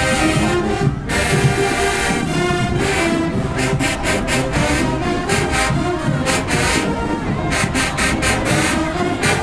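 Marching band playing loudly: brass horns sounding sustained chords, with the percussion striking a steady rhythmic beat from about three seconds in.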